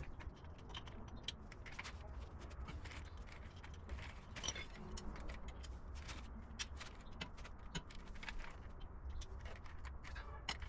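Scattered, irregular sharp metallic clicks and clinks of hand tools working the hub assembly's bolts, over a low steady hum.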